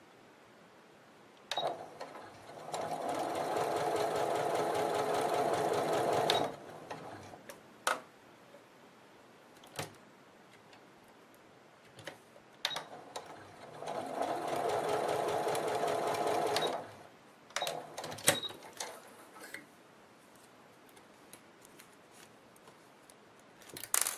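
Domestic electric sewing machine running in two steady bursts of a few seconds each, about ten seconds apart, as it stitches ban roll tape onto silk chiffon. Short clicks and handling noises come between and after the runs.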